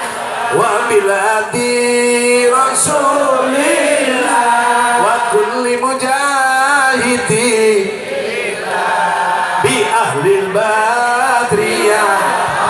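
Sholawat, an Islamic devotional song, sung through a PA system in long, wavering held notes.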